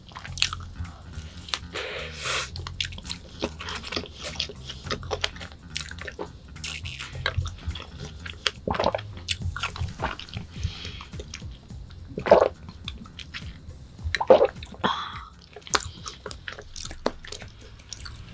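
Close-miked eating sounds: chewing a strawberry dessert with many small wet mouth clicks, then sips and swallows of an iced drink through a straw. Soft background music plays under it.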